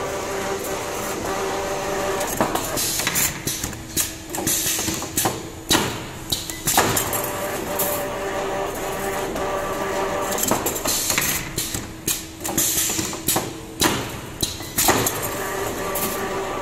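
Automatic wire-forming and welding machine running: a steady hum under repeated sharp clacks and short hisses of air from its pneumatic cylinders as it bends and welds wire into oval rings.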